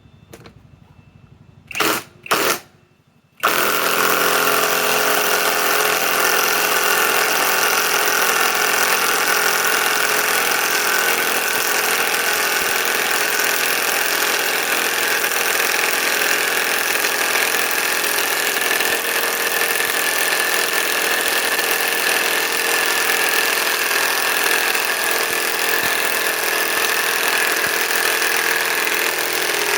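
Harbor Freight Hercules HCB84B2 compact 1/2-inch cordless impact wrench driving a 4-inch lag screw into wood. It gives two short trigger blips about two seconds in, then runs continuously under load from about three and a half seconds on.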